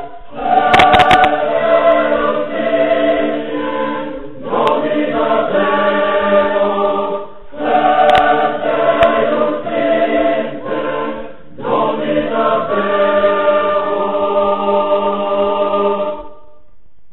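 Choir singing a sacred Latin piece in sustained chords, in four phrases with short breaks between them. The last chord ends about a second before the end.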